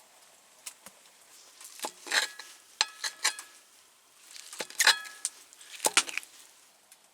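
Metal cookware clinking: a utensil knocking against a metal pan in several short groups of clinks, some ringing briefly.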